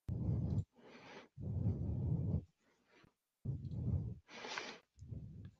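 A person breathing close to a microphone: several heavy breaths that blow on the mic, alternating with thinner, hissy inhales.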